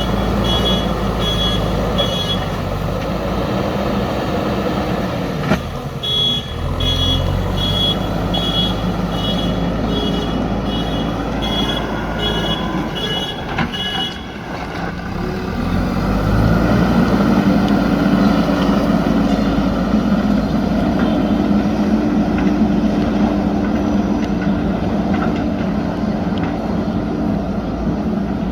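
JCB backhoe loader's diesel engine running under load, with its reversing alarm beeping about twice a second through the first half, with a short break. About halfway through the beeping stops and the engine works harder and louder.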